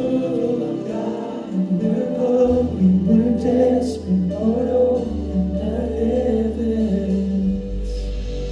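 Worship song with sung vocal lines over a sustained accompaniment; a low bass note comes in about two and a half seconds in and steps down to a lower note near the end.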